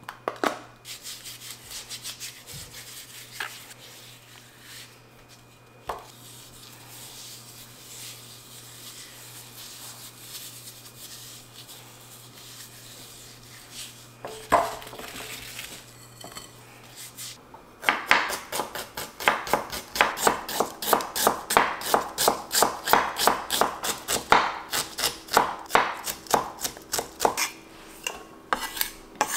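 Kitchen knife chopping on a cutting board, starting about eighteen seconds in and going on in quick, even strokes, about three or four a second. Before that there are only soft handling sounds and a few light knocks.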